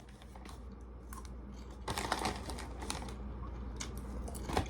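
Popcorn being eaten: faint, irregular crunching and crinkling that picks up about two seconds in.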